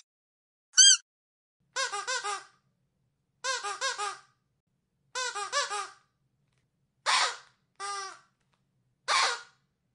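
Dog squeaky toy squeezed by hand, each squeak rising and falling in pitch. A single squeak comes first, then three quick runs of about four squeaks each, then three separate, longer squeaks.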